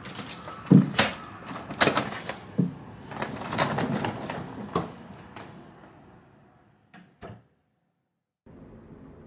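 Footsteps in loafers and a hard-shell suitcase on casters being wheeled and knocked across a tiled floor through a doorway, with several sharp knocks and clicks. The sounds fade away, two small clicks follow about seven seconds in, and after a moment of silence a steady low background noise starts near the end.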